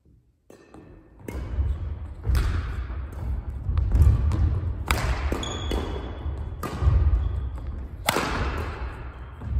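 Badminton rally: rackets strike a shuttlecock in a string of sharp pops, about eight hits, over thudding footsteps on a wooden gym floor, with echo after each hit. The loudest hit comes about eight seconds in, a jump smash.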